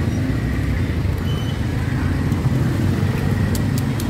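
Steady low rumble of street background noise with traffic hum, and a few light clicks near the end.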